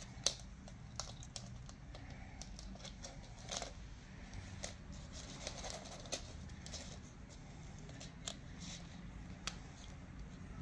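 A kitten playing on a laminate floor: faint, irregular clicks and scratchy rustles of its claws on the floor and on the thin ribbon it is biting and kicking, with one sharper click about a quarter second in.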